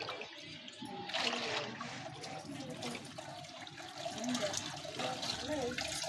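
Hands working a cloth in a bucket of muddy water, with splashing and water running and dripping back into the bucket as the cloth is squeezed out.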